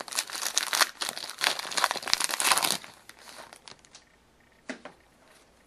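Plastic wrapper of a 2011-12 SP Authentic hockey card pack being torn open and crinkled for about three seconds, then quieter rustling with one short click near the end.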